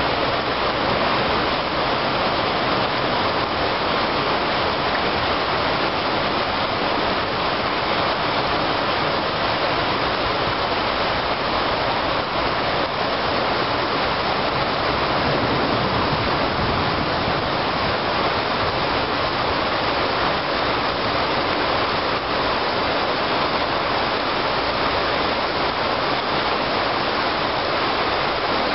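Heavy rain pouring down on rooftops, a steady, unbroken rushing hiss.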